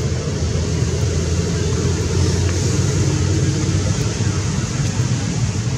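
Steady low rumbling outdoor noise with an even hiss above it, unbroken and without any clear animal call.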